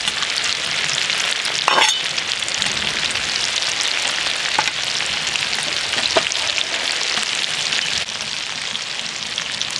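Young potatoes, tomatoes and fat-tail cracklings sizzling steadily in rendered lamb fat-tail fat in a heavy cast-iron sach, with a sharp knock of a utensil on the pan about two seconds in and a few small pops of spitting fat.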